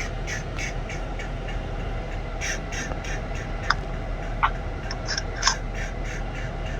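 Birds calling: a run of short high chirps and squawks, with three sharper calls near the middle, over a steady low hum.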